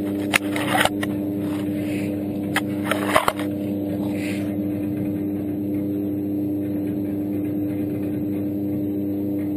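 A machine's motor running steadily with an even, unchanging hum, with a few sharp knocks and clatters in the first three and a half seconds.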